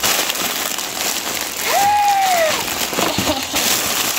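Clear plastic packaging bag crinkling and rustling as it is handled and clothes are pulled out of it: a dense, crackly rustle throughout. A single short, high, rising-and-falling vocal call sounds about halfway through.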